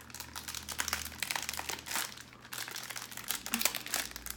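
Plastic wrapper of a pack of Peeps marshmallows crinkling as it is handled and opened, a dense run of irregular crackles.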